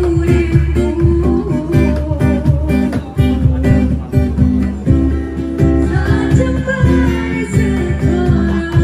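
Acoustic guitar strummed in a steady rhythm, with a woman singing into a microphone over it.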